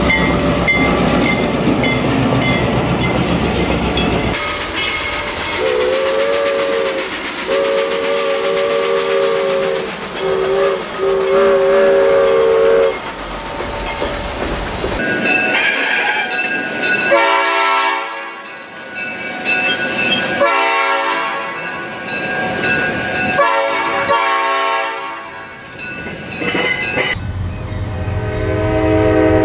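Real diesel locomotive sounds dubbed over the toy trains. A train rumbles past. Then a locomotive horn sounds long, long, short, long, the grade-crossing signal. A second, richer-toned train horn follows with three long blasts, and the rumble returns with a horn near the end.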